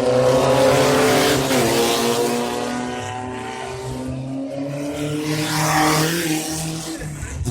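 Off-road race car engine running hard, its pitch dipping about a second and a half in and climbing again near the end, with a steady rush of noise over it.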